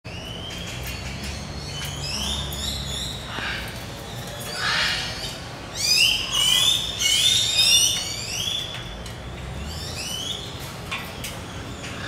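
Birds calling: a busy run of short, rising, whistled calls that repeat throughout, with the loudest stretch about six to eight seconds in.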